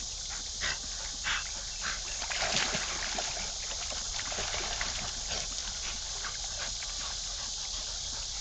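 Two Labrador retrievers splashing and paddling in shallow pond water at the bank, water sloshing in short bursts, busiest about two and a half seconds in, over a steady high hiss.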